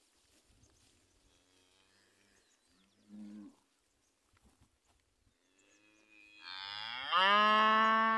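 Cattle mooing: one short, quieter moo about three seconds in, then a long, loud moo near the end that rises in pitch and then holds steady.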